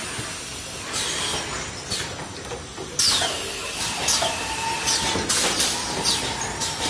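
Yanmao 3-in-1 case packer running: repeated short hisses of compressed air, several falling in pitch, from its pneumatic cylinders and clacks of the mechanism as a corrugated carton is pulled open and folded. A steady machine hum sits under them from about three seconds in.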